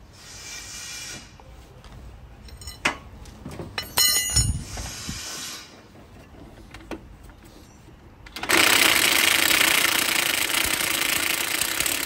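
Impact wrench hammering steadily for about four seconds near the end, on a shock absorber nut and bolt, after a few metal clinks of tools; the bolt spins with the nut instead of undoing. Earlier come brief hissing and metallic clicks of hand tools.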